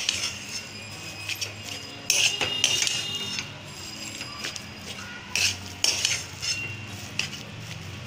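Metal spatula scraping and knocking against a metal kadhai while stirring and pressing a dry mashed jackfruit filling, in irregular strokes with a longer run of scraping about two seconds in.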